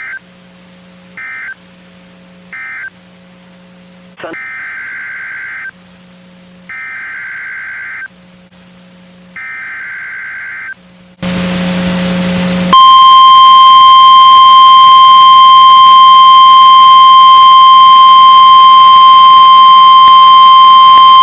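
NOAA Weather Radio emergency alert signalling. Three short bursts of screechy digital data tones mark the end of the previous warning. Three longer data bursts follow as the header of the next warning, then a moment of static, then the loud, steady 1050 Hz weather-radio warning alarm tone for the second half.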